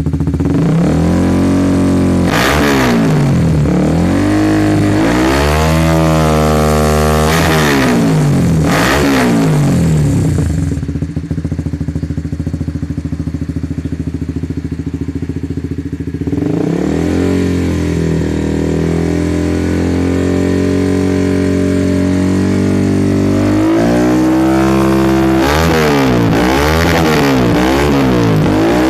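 Honda CBR150R's single-cylinder four-stroke engine revved through a WRX GP-series full-system aftermarket exhaust with a round silencer, sounding very bassy. Throttle blips rise and fall in pitch, the engine drops to a lower idle for about five seconds midway, then holds a higher speed and ends with quick repeated revs.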